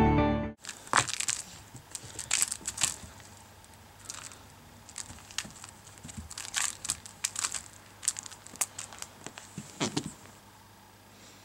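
A playing cat scratching and scrabbling with its claws: an irregular run of short, crackly scratching noises that stops about ten seconds in.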